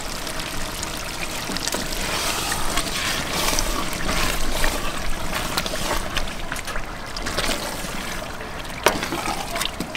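Wooden spoon stirring yogurt into a wet curry masala in a large metal cooking pot: steady wet sloshing and scraping, with a sharp knock about nine seconds in.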